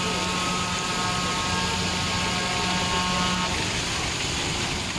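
Heavy rain pouring onto a wet city road, with traffic passing through the water. A steady single-pitch vehicle horn is held and stops about three and a half seconds in.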